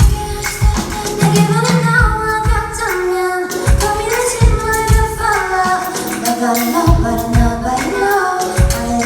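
A woman singing a pop song live over a band, with a kick drum beating steadily underneath.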